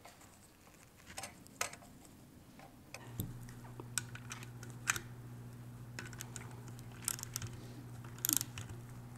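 Scattered light clicks and taps from hands working on a reassembled electric motor's end bell and shaft. A steady low hum sets in about three seconds in.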